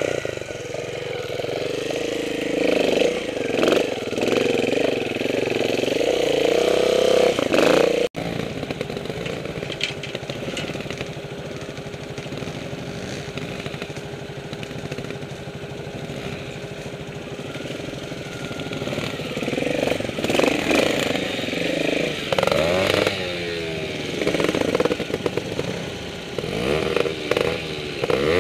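Trials motorcycle engines revving in short, uneven blips. The sound breaks off abruptly about eight seconds in, then a steadier low engine note runs until the revving blips return over the last several seconds.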